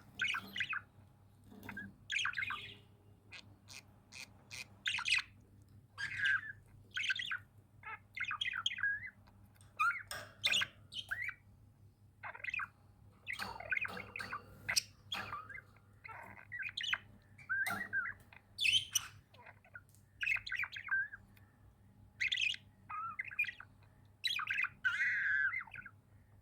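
Pet budgerigars chirping and squawking: short, warbling calls in quick clusters, one after another with brief gaps between them.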